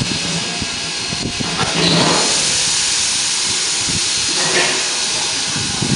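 Steam locomotive hissing steam steadily, the hiss growing louder about two seconds in and holding.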